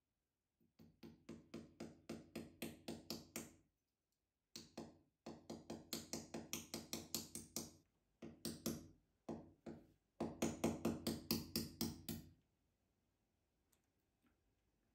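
Steel hammer tapping the nail of a small brass picture-hanger hook into a wall: quick taps, about five a second, in several runs with short pauses, stopping about twelve seconds in.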